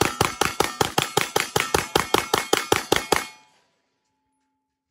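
Glock 19 9mm pistol fired in a rapid mag dump, about five shots a second, emptying the magazine and stopping abruptly a little past three seconds in.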